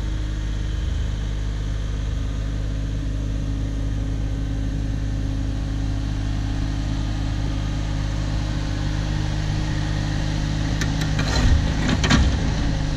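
Cat 304 mini excavator's diesel engine running steadily under hydraulic work while it moves a large rock, with a few clanks near the end.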